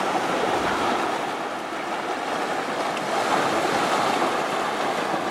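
Sea surf breaking and washing over a rocky shore: a steady rush of water with no break, easing slightly about two seconds in, with some wind on the microphone.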